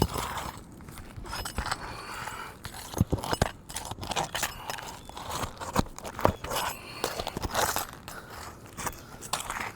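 Irregular scraping, crunching and sharp clicks of a roofing tool worked under asphalt shingles to pull out nails.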